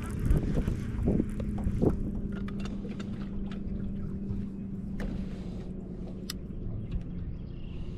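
Boat motor running with a steady low hum that fades near the end, over a low rumble, with a couple of sharp clicks about five and six seconds in.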